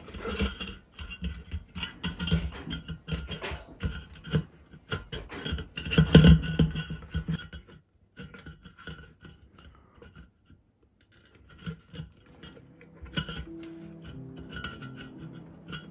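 A plastic lamp base, wrapped in LED strip, rubbing and scraping against the rim of a white glass lamp globe as it is pushed in and fitted, with clicks of handling. The handling stops for a few seconds about halfway through, then resumes more quietly.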